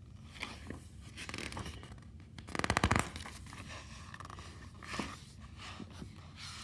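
Paper pages of a picture book being turned and pressed flat by hand: soft rustling and scraping, with one louder, rapid rattling rustle a little before the middle.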